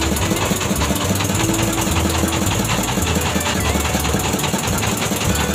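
A fishing boat's engine running steadily with a rapid, even knocking beat.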